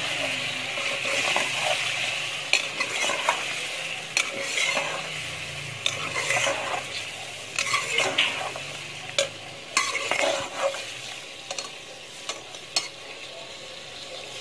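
Chicken and chopped onions sizzling in oil in a metal pot while a metal spoon stirs them, scraping and clinking irregularly against the pot. The onions are being fried to cook out their rawness.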